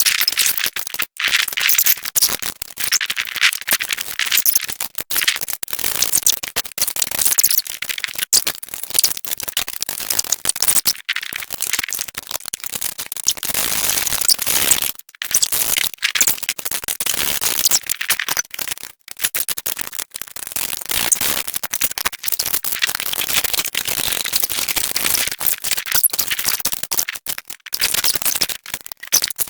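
Power tool driving screws into steel brackets: a dense, rapid metallic rattling and clicking that stops and starts in short runs.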